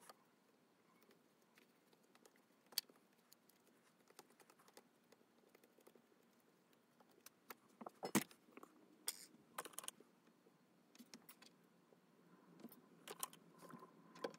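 Faint, scattered clicks and taps of small metal model-locomotive parts (wheel sets, axles, gear block) being handled and set down on a leather work mat. The loudest knocks come about eight seconds in, with a few more clicks after.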